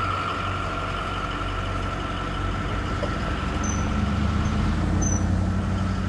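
A motor vehicle's engine running close by on the street: a steady low hum that swells a little later on.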